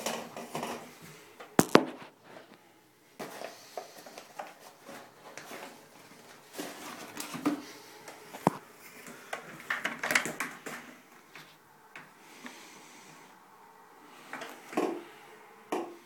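Irregular knocks, clicks and rustling as the plastic bin, hose and paper dust bag of a Kärcher A 2004 wet & dry vacuum cleaner are handled.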